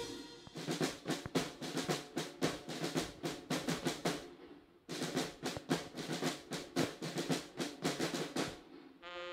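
Military band drum section playing a marching cadence on snare drums with bass drum, in two phrases of about four seconds with a brief pause between them. Brass comes back in right at the end.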